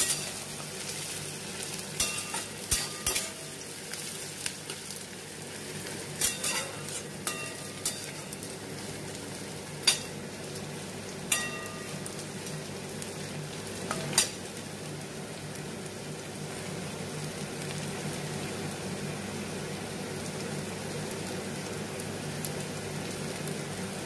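Sliced onions sizzling in hot oil in a frying pan, with a metal spatula scraping and clinking against the pan about a dozen times in the first half. The second half is steady sizzling.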